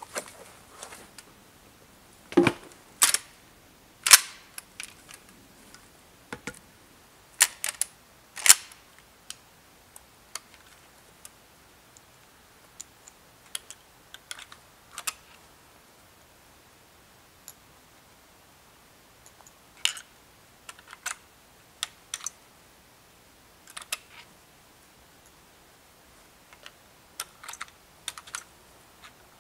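Irregular sharp metal clicks and clacks of a lever-action rifle being handled. The loudest come in a cluster in the first nine seconds, with fainter single clicks scattered through the rest.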